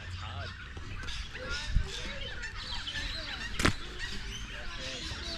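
Many birds chirping and calling together in a busy chorus. Two sharp clicks are heard, one about two seconds in and a louder one just under four seconds in.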